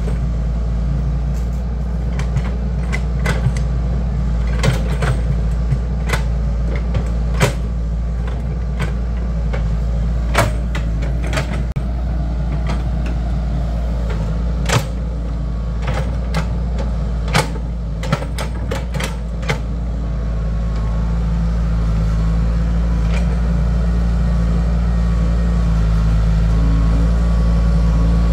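An excavator's diesel engine running steadily, with frequent sharp clanks and knocks of metal working over roughly the first twenty seconds. Near the end the knocks stop and the engine runs smoother and slightly louder.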